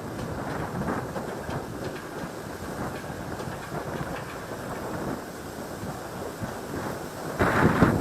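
Steady rumbling noise with no clear pitch, turning much louder and buffeting about seven seconds in, like wind on the microphone.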